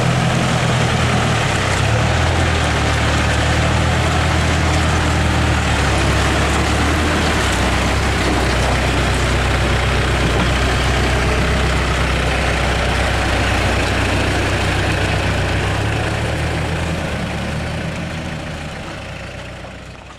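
Diesel engines of a backhoe loader and a farm tractor running together in deep mud, a steady low drone whose pitch shifts a few times as the engines change speed. The sound fades out near the end.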